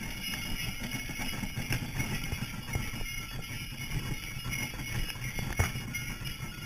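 Sleigh bells on a horse team's harness jingling steadily over the low rumble of a horse-drawn sleigh moving across snow. A single sharp knock about five and a half seconds in.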